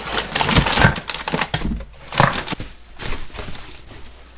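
Frozen vacuum-sealed steak packages being handled: irregular plastic crinkling and rustling, with short knocks as the hard packs bump against each other and the box.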